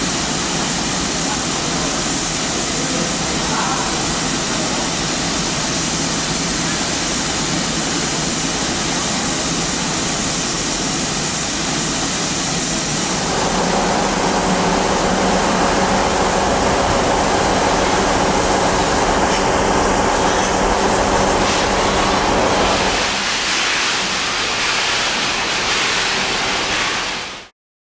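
Steam hissing steadily from BR Standard Class 7 'Britannia' Pacific steam locomotive 70013 while it stands, with no exhaust beats. The hiss grows louder about halfway through, eases again a few seconds before the end, then cuts off suddenly.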